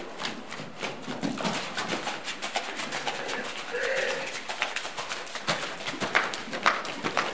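Hooves of a cantering horse on sand footing: a quick, irregular run of soft thuds. A short tonal call sounds briefly about four seconds in.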